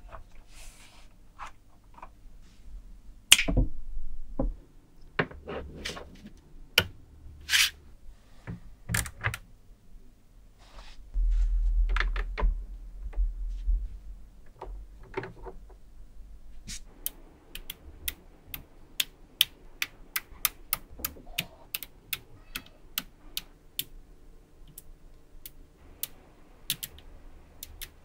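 Small magnetic balls clicking and knocking as they snap onto a structure built of magnetic balls, with low handling rumble near the middle. In the second half comes a quick run of sharp clicks, two or three a second, as columns of balls are pressed into place.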